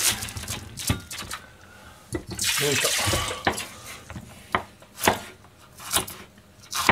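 Kitchen knife chopping a green pepper on a plastic cutting board: about five sharp chops, roughly one a second, in the second half. Before them, about two seconds in, a second-long rushing noise.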